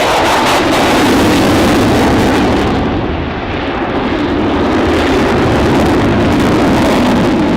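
An aircraft flying past overhead: loud, steady engine noise that dips briefly about three seconds in.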